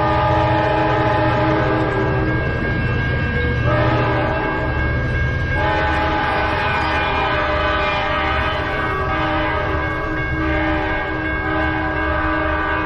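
Sounder commuter train's locomotive air horn sounding a long, multi-note chord over the steady low rumble of the passing train. The horn breaks off briefly about two and a half seconds in, then sounds again, and its chord shifts about five and a half seconds in.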